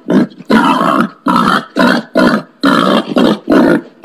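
Wild pig giving a rapid series of harsh grunts, about two a second.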